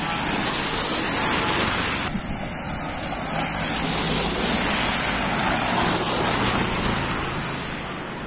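Cars and motorbikes passing on a wet road, their tyres hissing on the wet surface, with a faint engine hum. The noise swells as they go by and eases near the end.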